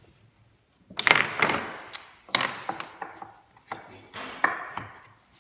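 Small timber spacers being slotted and pressed by hand into the groove of a wooden handrail and base rail: a run of sharp wooden clicks and knocks in several small clusters, starting about a second in.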